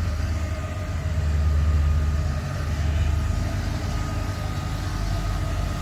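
Engine of a construction-site machine running steadily: a deep, low drone that swells a little about a second in, with a faint thin whine above it.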